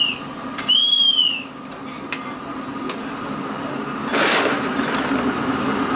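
Sounds of a 5-inch-gauge live-steam BR 50 locomotive being fired up: a steady hum with a few light metal clinks. A high tone that rises and falls comes about a second in, and a short hiss about four seconds in.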